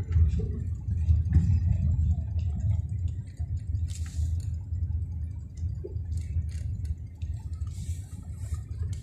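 Steady low rumble of a car heard from inside the cabin as it drives slowly over rough, uneven ground, with light rattles and ticks.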